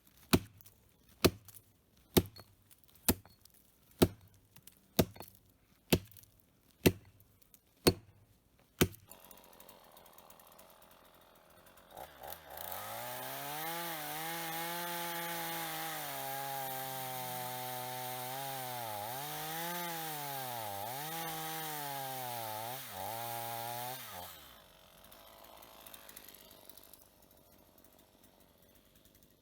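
An axe chopping into a dry aspen trunk, about ten sharp strikes roughly once a second. A few seconds later a chainsaw runs for about twelve seconds, its pitch dipping and recovering several times as it cuts the wood.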